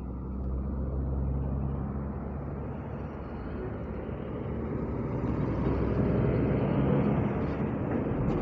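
Diesel coach engine idling steadily, with heavy trucks passing on the highway; the passing traffic swells to its loudest about six to seven seconds in.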